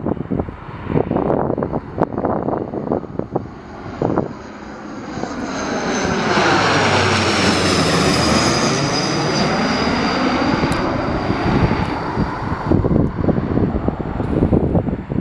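Dash 8 Q400 turboprop passing low overhead on approach to land: the engine and propeller noise swells over a few seconds, a high whine falls in pitch as it goes by, then it fades. Gusts of wind buffet the microphone before and after the pass.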